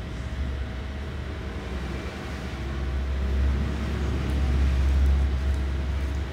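Low rumble of road traffic that swells and fades about three to five seconds in, over a faint steady hum.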